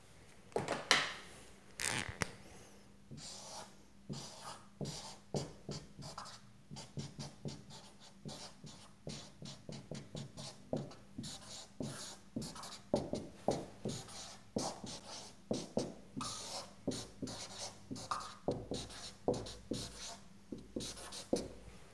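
Dry-erase marker writing on a whiteboard: a long run of short, irregular strokes and taps as an equation is written out.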